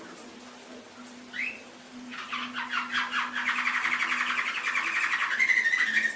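Domestic canary singing: a short rising chirp, then a long phrase of rapid trills that grows louder and ends on a held whistled note.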